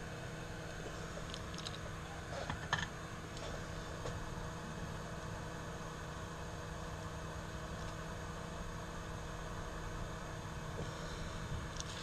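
Steady electrical hum and hiss of bench equipment, with a few faint small clicks in the first three seconds.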